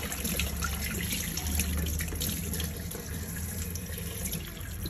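Kitchen tap running onto hands and a soaked sea cucumber being rinsed over a basin of water, a steady splashing stream with small irregular splashes and drips.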